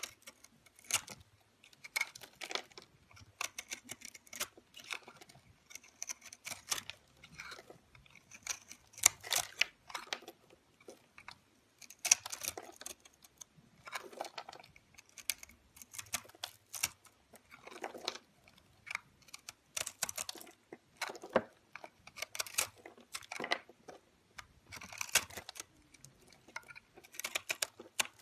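Utility knife blade cutting and scraping into a ball of soap studded with soap chunks: a run of short, crisp crunches and scrapes at irregular intervals as pieces and flakes break off.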